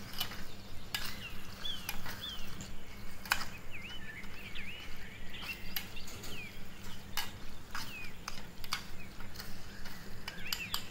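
Small metal spoon stirring a wet mixture in a miniature brass pot, clinking irregularly against the pot's sides. Birds chirp now and then in the background over a steady low hum.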